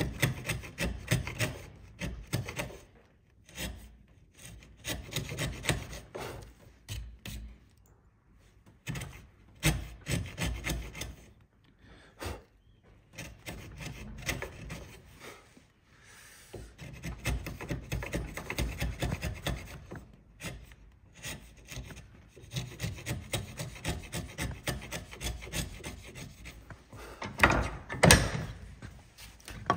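Wood chisel paring across the grain in the housing of a softwood halving joint, scraping in runs of quick short strokes with brief pauses between them. A couple of sharp knocks near the end.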